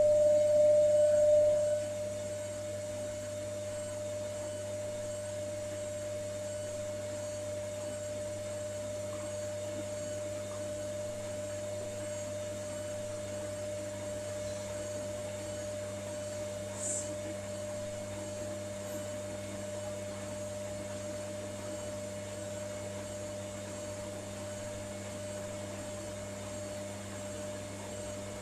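Hotpoint Ariston Aqualtis washing machine running in the last rinse of its wool programme: a steady hum with a high tone that drops sharply in loudness about two seconds in. There is one faint click past the middle.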